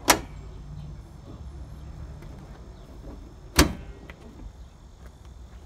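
Steel hood of a 2005 Chevy Silverado 1500 being closed: a sharp clunk just after the start as it comes down onto the latch, then a second loud clunk about three and a half seconds in as it is pressed down and latches shut.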